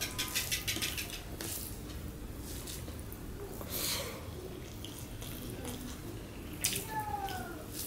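Fingers mixing rice with mashed tomato bhorta on a steel plate: wet squishing and fingertips scraping and clicking on the metal, in short bursts. About four seconds in, a mouthful is taken and chewed.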